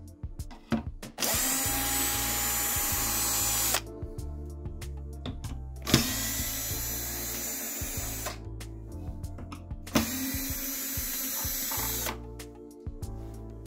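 Electric screwdriver running in three bursts of about two seconds each, unscrewing the soundbar casing's screws, over background music.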